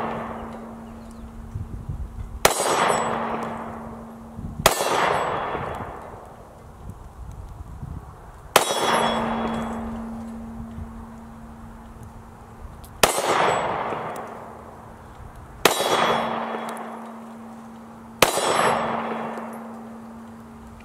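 Six slow, single 9mm shots from a Smith & Wesson M&P9 Shield Plus pistol, spaced two to four and a half seconds apart. Each crack is followed by a decaying ring, and a steady low ringing tone hangs between the shots, as from struck steel target plates.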